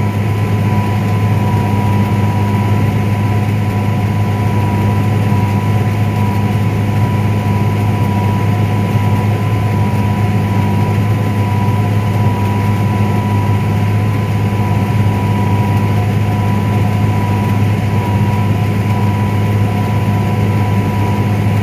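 Combine harvester running steadily while cutting corn, heard from inside the cab: a low, even engine drone with a thin, steady whine above it.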